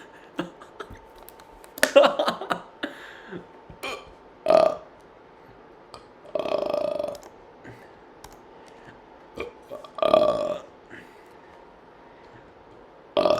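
A man burping deliberately, about five separate burps, one of them about a second long.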